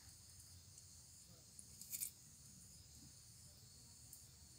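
Faint steady chirring of insects, with a brief cluster of crackling clicks about two seconds in.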